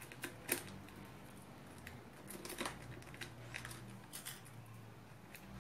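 Dried hibiscus flowers being handled and pushed into the mouth of a plastic shampoo bottle: scattered light crinkles and clicks, the sharpest about half a second in.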